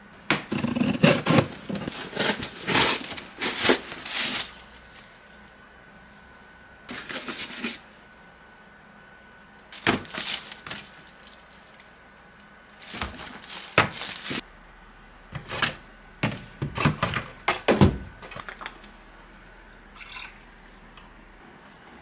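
Packaging and plastic supplement bottles being handled on a counter: irregular bursts of crinkling, rustling and sharp clicks as items are picked up, shown and set down, with short quiet gaps between.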